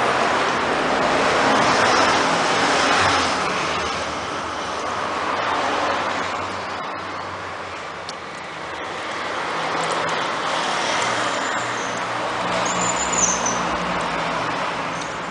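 Automatic transmission fluid draining from the opened transmission into a catch pan: a continuous splashing rush that swells and eases.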